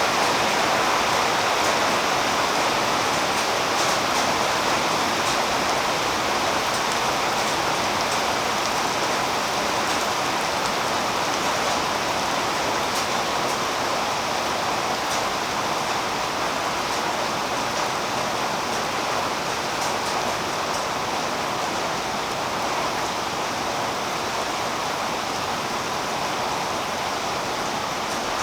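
Steady rain falling on tree foliage: a dense, even patter with faint drop ticks scattered through it, fading slightly over the stretch.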